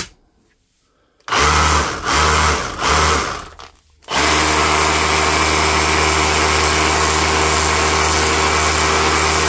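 Milwaukee M18 Fuel SDS-plus brushless rotary hammer (M18 CHX) switched on in three short bursts, then run continuously for the last five seconds without cutting out. The fault that made it stop intermittently, suspected to be a broken wire, seems cured: the owner calls it fixed.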